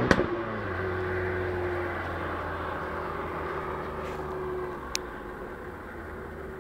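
Fiat 500 Abarth's stock 1.4 turbo four-cylinder dropping off a rev with a sharp pop, then settling to a steady, lower running note that slowly fades. A short sharp click about five seconds in.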